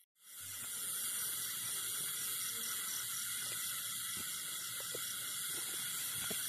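Steady high-pitched chorus of night insects, with a few faint knocks and scrapes of a hoe digging into soil in the second half.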